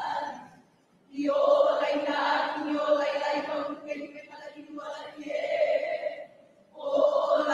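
A group of women chanting a Hawaiian oli in unison, holding long notes, with a breath pause about a second in and another near the end.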